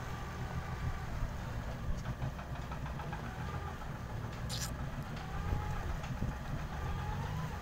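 Jet ski engine idling as the craft moves slowly through calm water, a steady low rumble. A brief sharp click about four and a half seconds in.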